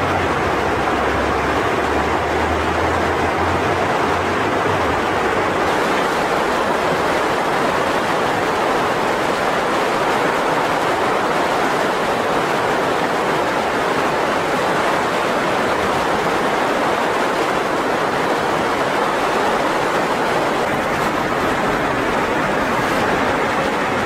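Fast mountain river rushing over whitewater rapids: a steady, unbroken rush of water.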